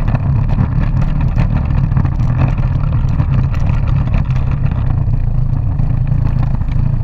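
12-volt Kawasaki ride-on toy four-wheeler driving along: a steady low drone from its electric drive, with constant rattling and rumble from the hard plastic wheels rolling over pavement.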